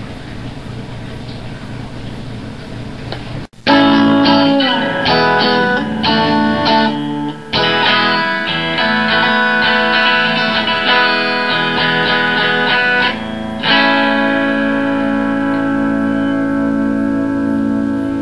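A steady background hum, then an abrupt cut about three and a half seconds in to a Stratocaster-style electric guitar. The guitar plays a quick run of picked notes, then a note near the end that rings on.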